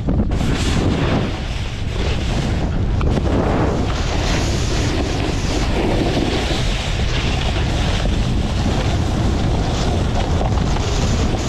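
Wind rushing over the microphone of a snowboarder's carried camera while riding, mixed with the snowboard's base and edges scraping over soft, slushy snow; a steady, even noise with no breaks.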